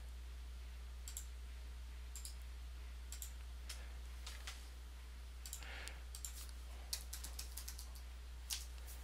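Faint computer mouse clicks and keyboard keystrokes, with a quick run of typing about six to eight seconds in, over a steady low hum.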